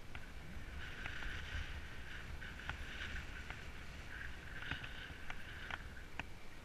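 Mountain bike rolling along asphalt. Tyre and drivetrain hiss swells and fades, with a few sharp rattling clicks from the bike and a low wind rumble on the microphone.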